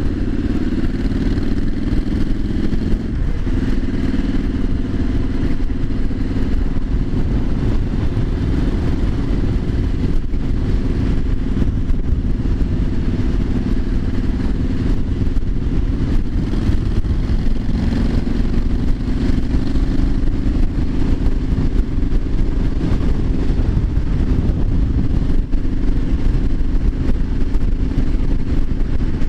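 Triumph Street Scrambler 900's 900 cc parallel-twin engine running at a steady cruise while riding, over steady wind and road noise, with small shifts in engine pitch.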